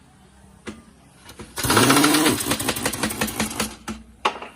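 Impact wrench hammering in a rapid rattle for about two seconds, its motor whine rising, while it runs the wheel nuts onto a newly fitted tractor front tyre. A couple of sharp clicks come before and after.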